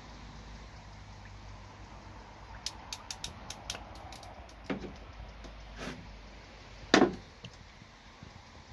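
Small sharp clicks and knocks from hands working bare wires and connectors in a boat's battery compartment while wiring a bilge pump. A quick run of about eight clicks comes around three seconds in, then single knocks, and a much louder knock about seven seconds in, all over a low steady rumble.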